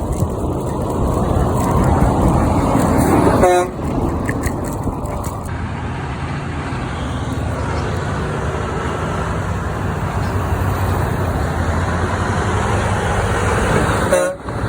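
Road traffic with heavy trucks driving past close by: engine and tyre noise swelling over the first few seconds and cutting off suddenly about three and a half seconds in, then steady traffic noise.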